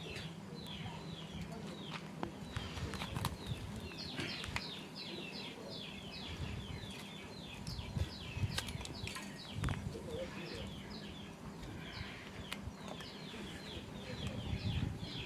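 Small birds chirping in quick runs of short falling notes, with a few sharp knocks and a low steady hum underneath.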